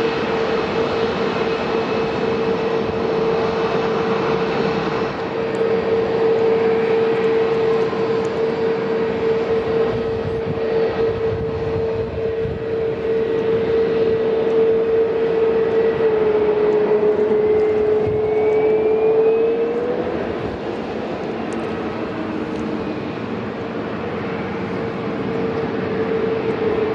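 Jet airliner engines running with a dense rush and a steady high whine. The whine dips slightly and glides back up about two-thirds of the way through.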